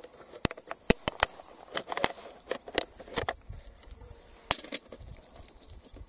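Wire-mesh fish trap being handled and emptied of small fish into a metal pail: a dozen or so irregular sharp clicks and light knocks, scattered through the whole stretch.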